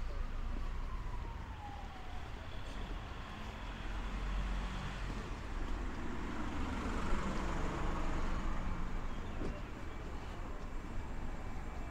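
A faint emergency-vehicle siren wailing, its pitch sliding slowly down in the first second or two, over a steady low rumble of street traffic. A vehicle goes past around the middle.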